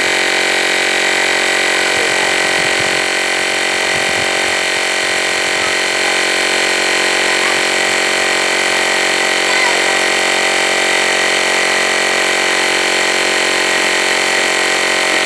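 Cordless battery-powered portable tire inflator running steadily while pumping up a tire. Its small electric compressor keeps an even, unchanging pitch throughout.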